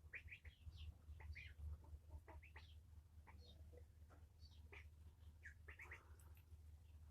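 Faint, rapid chirping of a small bird: many short chirps a few per second, over a steady low hum.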